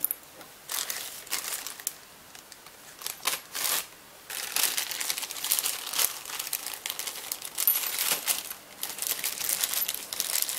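Clear plastic parts bag crinkling as it is handled and rummaged, with light clinks of small metal parts. Scattered clicks and rustles at first, then from about four seconds in an almost continuous crinkling.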